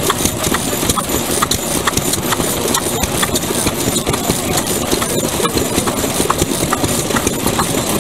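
Old single-cylinder stationary kerosene engines (hatsudōki) running: a steady chuffing rumble with regular sharp knocks about twice a second.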